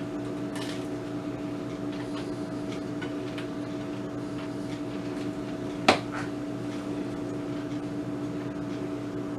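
Steady hum of a kitchen appliance, with one sharp click about six seconds in.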